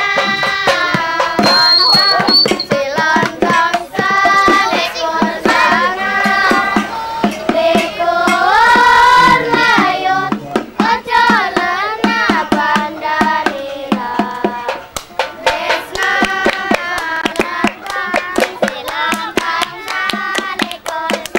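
Voices singing a melody over fast hand percussion, with sharp clicks and claps beating many times a second.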